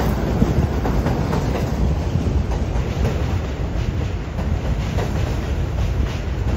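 R62A subway train running past on elevated track: a loud, steady low rumble with scattered clicks from the wheels on the rails.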